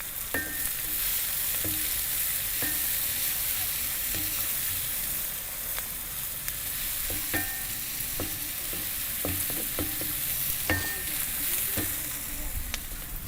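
Chopped onions frying in hot coconut oil in a pan: a steady high sizzle, with a spoon stirring and knocking against the pan now and then.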